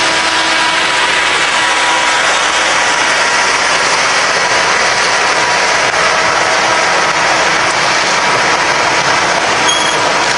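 Passenger cars of a steam excursion train rolling past at close range: a steady loud rush of wheels on rail, with a faint steady squeal running through it. A brief high squeak comes near the end.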